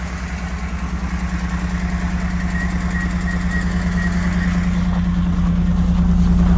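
BMW E39 528i's inline-six engine idling steadily just after a cold start, the exhaust not yet bolted back up, with a quick even pulse and a hum that grows gradually louder. The owner says it is not sounding too good.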